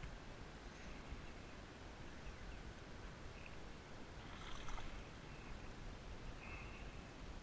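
Steady wind noise on the microphone with faint outdoor background, a brief scratchy burst about four and a half seconds in, and a few short, faint high-pitched tones.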